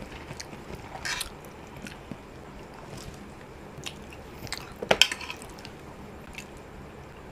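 Close-up eating sounds: chewing and mouth noises while eating durian pengat, with spoon and fork scraping and clicking on a plate. A quick cluster of sharper clicks comes about five seconds in.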